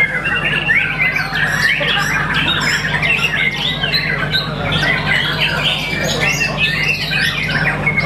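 White-rumped shama (murai batu) singing a fast, unbroken run of varied chirps, trills and squawky notes, over a steady low hum.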